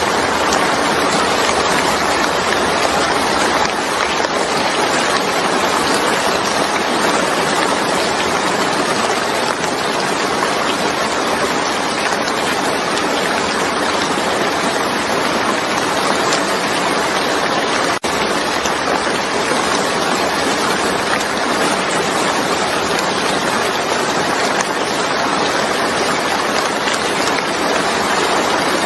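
Heavy rain falling steadily, an even hiss of countless drops, with a split-second dip in level a little past halfway.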